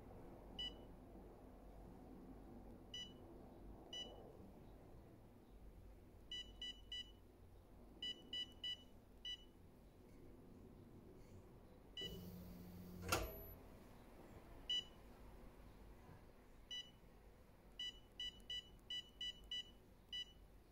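Touchscreen control panel of a Woojamark thermal transfer overprinter giving short, high key-press beeps as it is tapped, singly and in quick runs, with a fast run of about eight beeps near the end. Past the middle there is a single louder knock.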